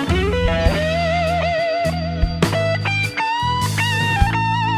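Instrumental background music led by an electric guitar, its held notes bending and wavering, over a steady low bass line with occasional percussive hits.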